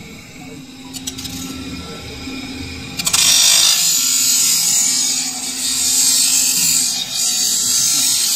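Steel stove-frame ring pressed against a spinning grinding wheel, grinding with a loud, harsh hiss that starts sharply about three seconds in and dips briefly once. Before that, only a quieter steady running sound.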